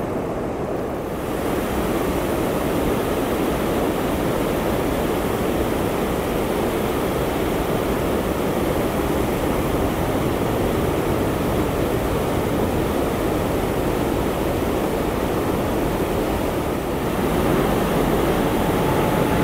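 Water thundering through a big weir on the River Thames: a steady, dense rush of white water that grows louder and fuller about a second in.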